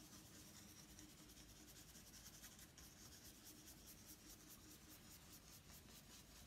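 Faint, quick strokes of a small oil-paint brush scratching and dabbing on a gesso-coated plywood panel, over a faint steady hum.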